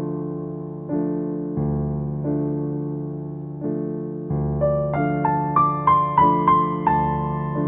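Background piano music: slow, sustained chords struck about once a second, with a short melody of single higher notes that climbs and then steps back down in the second half.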